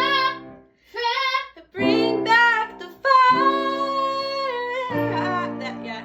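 A singer in a voice lesson sings several phrases over instrumental accompaniment. The last phrase is held for about three seconds with vibrato.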